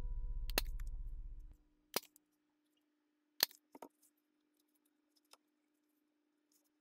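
Small metal hand-held hole punch snapping shut through paper and thin cardboard: a few sharp clicks, the loudest about three and a half seconds in. A held low tone fades out during the first second and a half.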